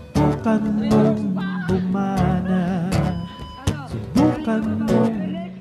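Background music: a song with strummed guitar and a wavering melody line.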